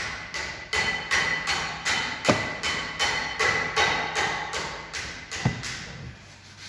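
Music with a steady mallet-percussion beat, about three strokes a second over ringing tones, with two heavier thumps.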